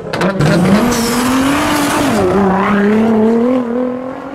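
Car engine and exhaust running loudly, the pitch climbing over the first second and a half, dropping about two seconds in, then slowly rising again before fading near the end.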